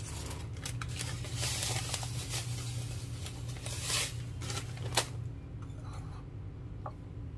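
Dry breadcrumbs poured from a crinkly plastic bag into a ceramic bowl, the bag rustling and crackling as it is shaken. A single sharp tap about five seconds in, then quieter handling over a steady low hum.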